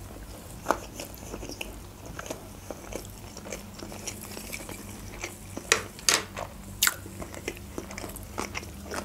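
Close-miked chewing of a sushi roll: wet, irregular mouth sounds with soft crunches and a few louder smacks.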